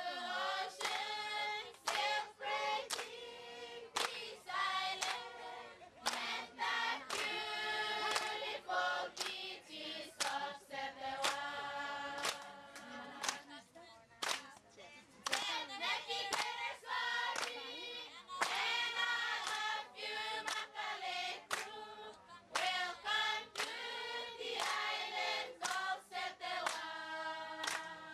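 A crowd of voices singing together in long held phrases, with sharp hand claps repeatedly cutting through the song.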